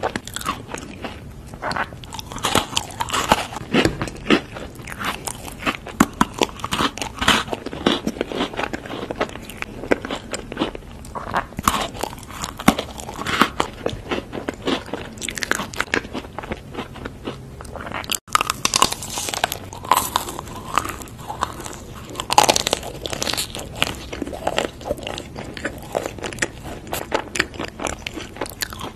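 A person biting and chewing crunchy chocolate snacks: chocolate-coated biscuit sticks and chocolate bars, one crunchy bite after another with chewing in between. There is a brief break in the sound about two-thirds of the way through.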